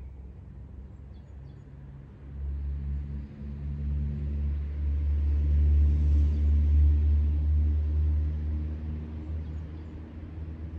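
A motor vehicle driving past: a low engine rumble that builds from about two seconds in, is loudest in the middle and fades away near the end.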